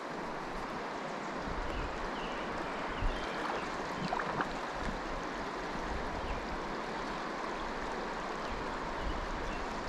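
River water running steadily past, an even rushing noise, with one soft knock about three seconds in.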